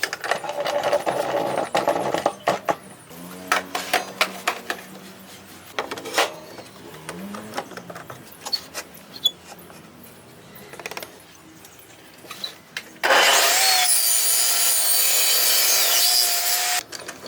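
Woodworking on timber: a rasping, saw-like stretch at the start, then scattered knocks and taps. About 13 seconds in, a power tool runs loud and steady with a whine for nearly four seconds, then cuts off suddenly.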